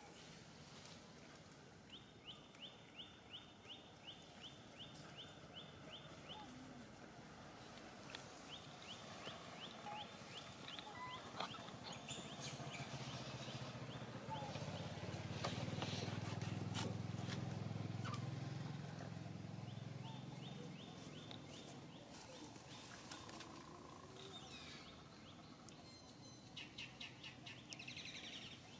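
Outdoor wildlife ambience: bouts of a rapid, evenly spaced, high chirping call, repeated four times. A low rumble swells and fades in the middle.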